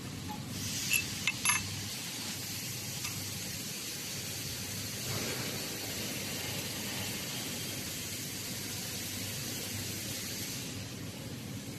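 A few light metal clinks about a second in as a laser-welded bolt and steel plate are lifted from the welding fixture, over a steady hiss that eases near the end.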